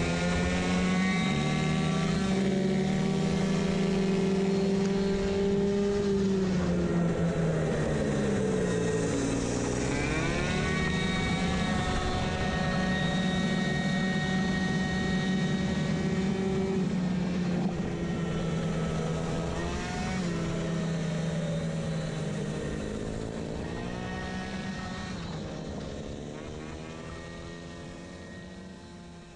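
Two-stroke racing moped engine with a variator running at high, steady revs, its pitch dipping and climbing back about eight seconds in and again twice later as it slows for corners and accelerates out. The sound fades out near the end.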